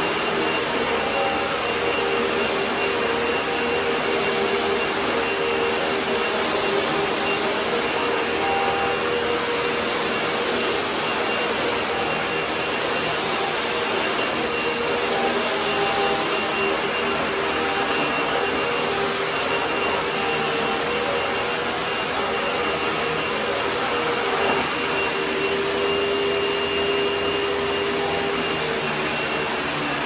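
Hoover Tempo Widepath upright vacuum cleaner running steadily on a bare concrete floor: a constant motor drone with a steady hum and a faint high whine.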